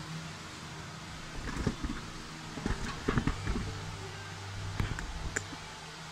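Handling noise: three short clusters of knocks and rubs over a steady low hum.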